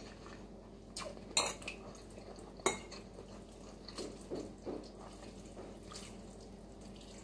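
A metal fork clinking and scraping against a ceramic bowl as noodles are stirred and lifted, with a few sharp clinks, the loudest about a second and a half in and again near three seconds in.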